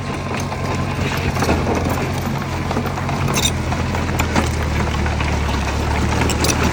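Small crawler bulldozer's diesel engine running steadily under load, with irregular metallic clanking and rattling from its tracks and blade.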